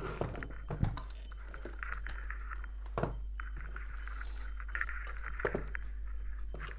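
Handling noise on a wooden workbench as a loudspeaker and its wires are moved and set down: scattered light knocks and rustles over a steady low hum.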